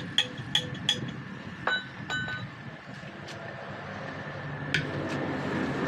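Metal tools striking metal during JCB tyre work: a series of sharp, ringing clinks, three in quick succession in the first second, two more about two seconds in and another pair near the end, over a steady low hum.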